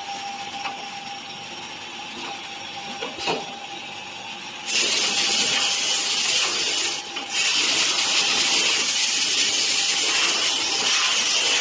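Multi-spindle CNC boring and dowel-insertion machine running with a steady hum and a knock about three seconds in. From about five seconds its drill spindles bore into wooden rails with a loud, high rushing noise that breaks off briefly about seven seconds in.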